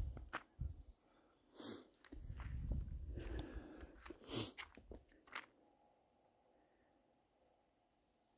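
Footsteps on a dirt forest trail with scattered knocks and muffled low rumbles, loudest in the middle, then a faint fast high trill near the end.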